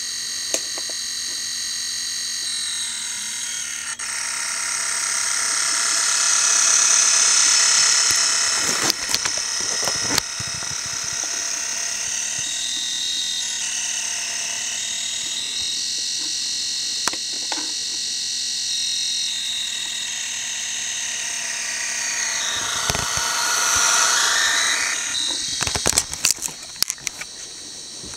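High-pitched whine of an Athearn HO-scale SD40T-2's analog motor running without a decoder on DCC track power. This steady singing is the noise a plain DC motor makes under a DCC signal. It swells louder twice, with a few sharp clicks in between.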